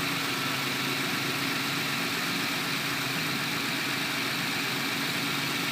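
2000 Toyota Tundra engine idling steadily. The starter relay, which is sticking, has been pulled, so the starter is disengaged and only the engine runs.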